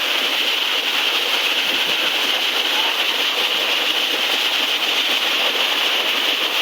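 Waterfall's steady rush of falling water, an even hiss that holds at one level throughout.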